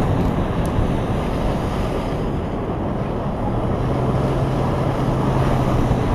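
Strong wind rushing steadily over the microphone of a vehicle driving away from a nearby tornado. A low engine hum comes in about halfway through.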